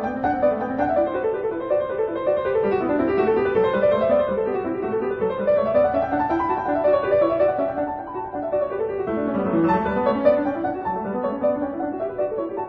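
Background piano music, with runs of notes that rise and fall.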